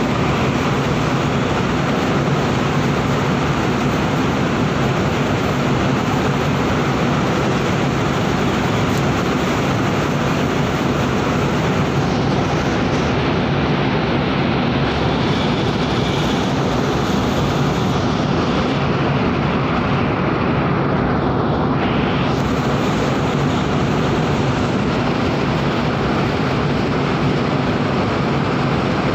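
Steady, loud drone of a cargo ship's engines and machinery heard on deck, a low hum under an even rushing noise that does not change.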